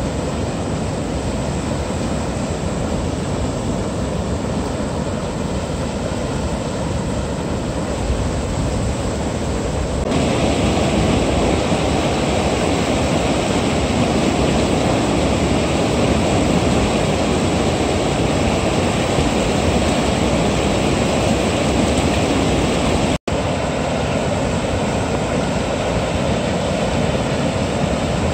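Rapids of river water rushing steadily over a weir's spillway, a continuous wash of noise with no break in rhythm. It grows louder and fuller about ten seconds in and cuts out for an instant near the end.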